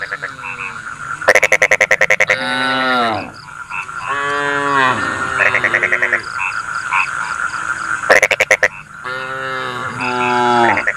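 Cattle calling in several drawn-out moos that bend and fall in pitch, mixed with loud rattling frog croaks, once about a second in and again near the end, over a steady background chorus.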